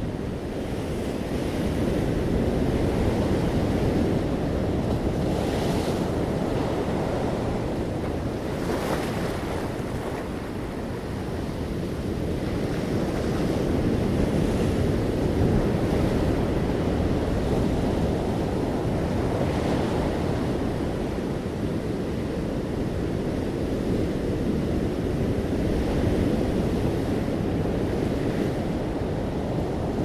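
Ocean surf washing over shoreline rocks, a continuous foamy rush that swells and eases as each wave comes in, with a few brief hissing splashes.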